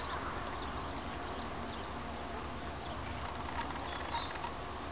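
Faint steady outdoor background hiss, with a bird giving one short falling chirp about four seconds in.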